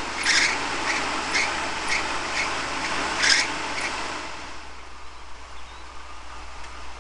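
Footsteps scuffing on an asphalt road, about two scraping steps a second, fading away after about four and a half seconds.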